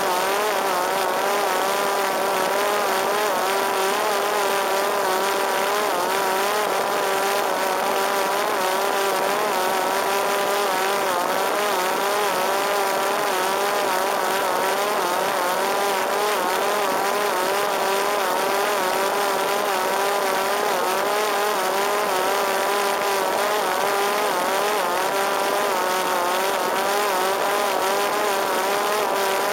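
Parrot Disco drone's electric motor and pusher propeller whining steadily in flight, the pitch wavering slightly up and down, over a steady hiss.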